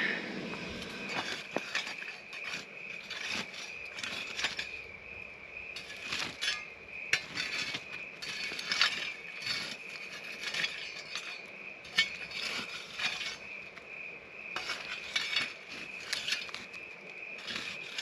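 Irregular crackles, knocks and clinks of wood being added to and stirred in a campfire, over a steady high chirping of night insects.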